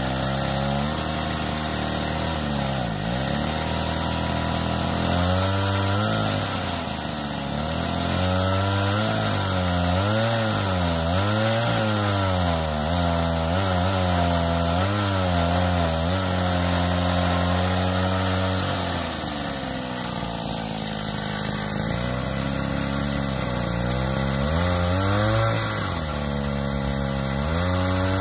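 Hydraulic pump of a homemade 1/8-scale Cat 390F RC excavator running with a steady whine, its pitch dipping and swinging back up again and again as the boom, arm and bucket dig and lift soil.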